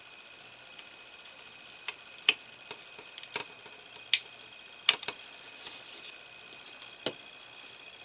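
Small screwdriver driving a tiny screw into a plastic model dashboard part: a string of sharp, irregular clicks and ticks, loudest a little after two seconds, at about four seconds and about five seconds in.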